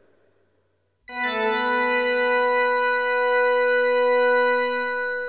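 After about a second of near silence, a sustained organ chord comes in suddenly and is held steady, starting to fade near the end.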